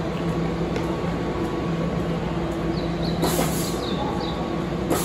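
Keihan 5000 series electric train standing at the platform with its doors open, its on-board equipment humming steadily. A brief hiss comes about three seconds in.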